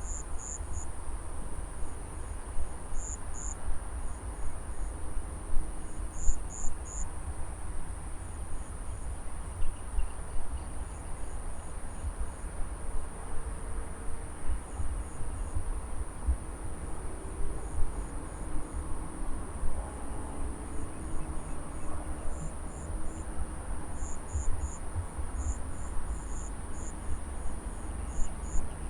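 Field insects chirping in a harvested rice paddy: a steady high trill with short chirps in quick groups of two to four repeating throughout, over a low, fluctuating rumble.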